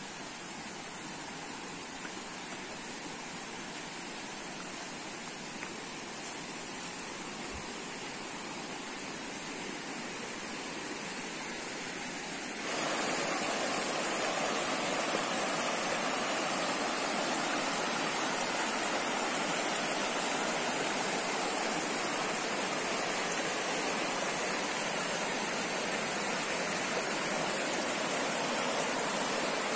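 Shallow rocky stream rushing over stones, a steady rush of water. It is fainter at first, then suddenly louder and nearer about thirteen seconds in.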